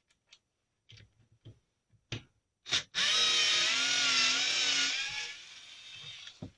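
A few light clicks of handling, then a small electric screwdriver runs for about two seconds, its pitch wavering under load as it backs out a stock screw, and it trails off.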